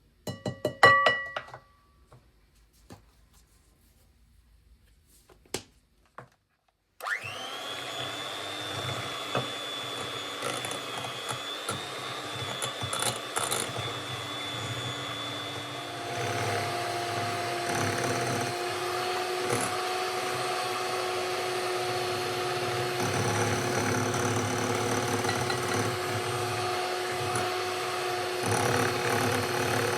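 A brief ringing clink and a few light clicks, then a small electric motor switches on about seven seconds in and runs steadily, its pitch changing about halfway through as it gets slightly louder.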